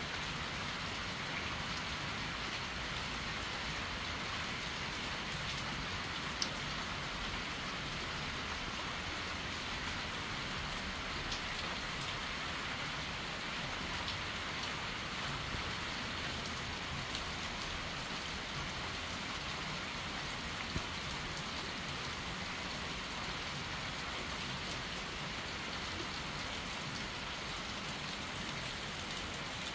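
Steady rain falling on trees and surfaces, an even hiss with a few sharper drop ticks.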